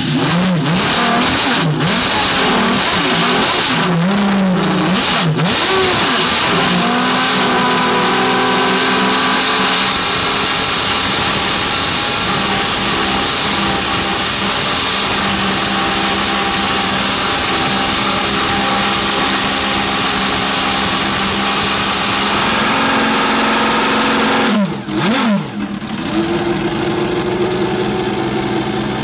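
Ferrari 333 SP's naturally aspirated 4.0-litre V12 race engine, just started and clearing its throat: a few throttle blips with sharp cracks in the first seconds, then a steady fast idle. About 25 seconds in the revs drop away and swing briefly before settling into a steadier, lower idle.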